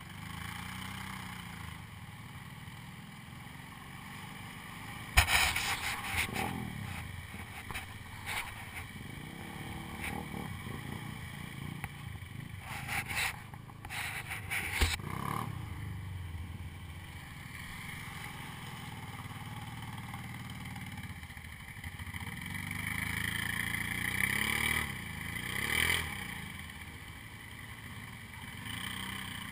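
ATV engines idling, with a rev that rises and falls near the end. Two sharp knocks come about five and fifteen seconds in; the first is the loudest sound.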